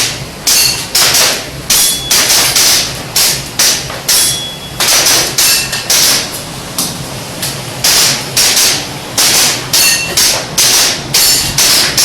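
Airsoft gas pistol firing a rapid course of fire: about two dozen sharp cracks, often in quick pairs, with a few short pauses between strings. Some shots are followed by a brief metallic ring.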